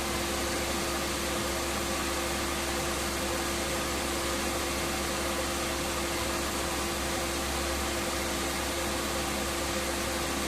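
Steady rushing air from a car's heater blower fan running in the cabin, with a steady hum underneath.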